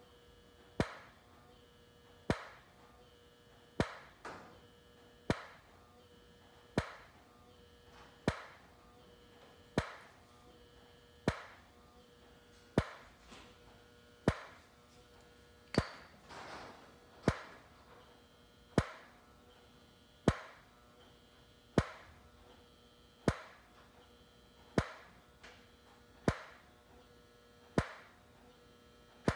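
Flash Technology FTB-324 xenon tower strobe firing in white day mode: a sharp snap from the flash tube about every one and a half seconds, about 40 flashes a minute, over a steady electrical hum and a faint whine from the power supply.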